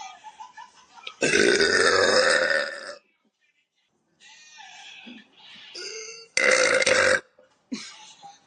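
A woman burping: a long, loud burp lasting nearly two seconds starts about a second in, and a shorter loud burp follows about six and a half seconds in, with softer sounds before and after it.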